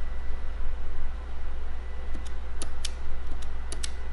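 About six light, sharp metallic clicks, mostly in the second half, as fingers prod the carry-transfer parts of a Friden STW-10 mechanical calculator. The transfer's small ratchet is stuck, so it is not ratcheting. A steady low hum runs underneath.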